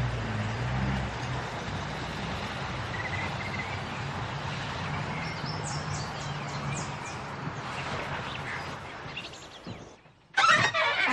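Countryside ambience: birds chirping over a steady background hiss. About ten seconds in it drops away almost to silence, then a sudden loud, noisy sound cuts in.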